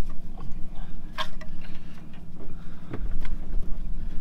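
A vehicle engine running with a steady low hum, with a few short clicks and knocks over it.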